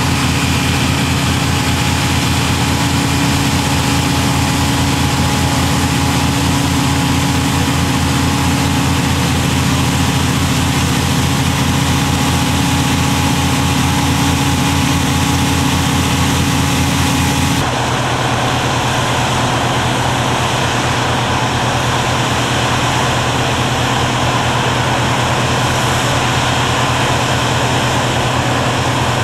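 Heavy machinery engine running steadily with a low drone; about two-thirds of the way through it changes abruptly to a different steady engine sound.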